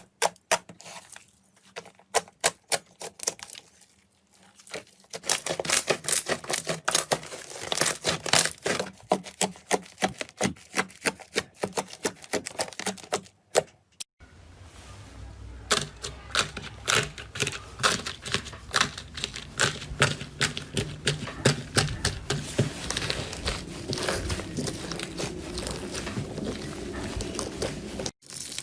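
Slime being squeezed and worked, making rapid crisp clicks and sticky pops. The sound cuts off and changes abruptly about four seconds in, around halfway and near the end.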